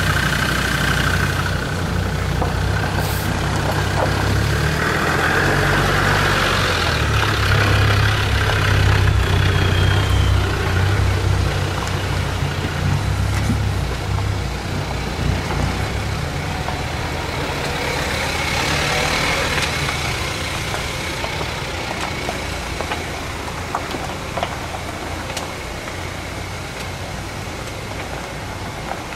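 Land Rover Defender's diesel engine running at low revs as it drives slowly past over a rocky gravel lane. The engine rumble is strongest about a third of the way in and fades after the halfway point, as another 4x4, a Jeep Wrangler, follows along the lane.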